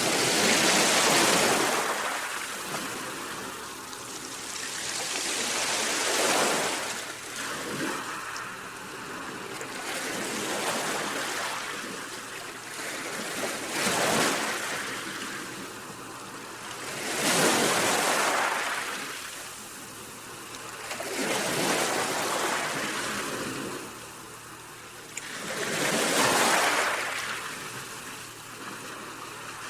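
Sea waves breaking and washing on the shore, the surf rising and falling in a slow rhythm, with a new wave about every four seconds.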